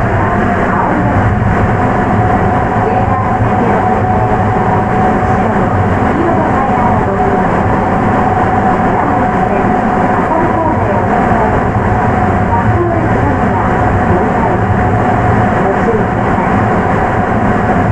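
Sapporo Municipal Subway 9000-series train with Hitachi IGBT traction equipment, running at steady speed underground on its rubber tyres. The running noise is loud and even, with one constant tone held throughout and no speed change.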